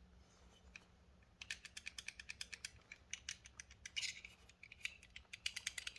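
Reate EXO knife clicking and rattling as it is shaken and worked in the hand: the springless blade knocking about inside its exoskeleton handle. A fast, even run of light metallic clicks, about five a second, begins about a second and a half in.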